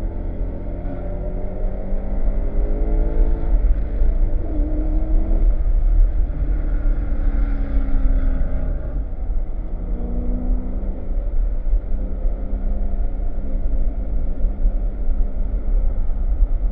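BMW E92 M3's V8 pulling hard, its pitch rising through the revs, dropping at shifts and falling off under braking before climbing again, over a heavy low rumble of wind and road noise.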